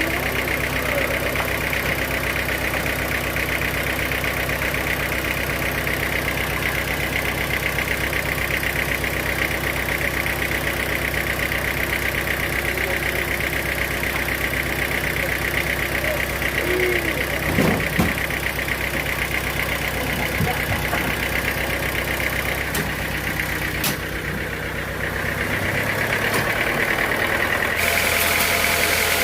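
Sawmill machinery running steadily: a motor's constant hum with a few short clicks, shifting in tone about two-thirds of the way through.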